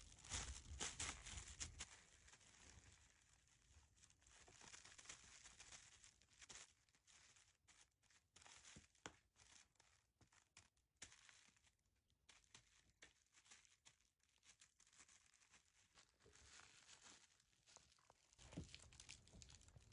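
Thin plastic sheet crinkling and rustling under kittens' paws as they bat at each other across it, in faint irregular crackles, loudest in the first two seconds.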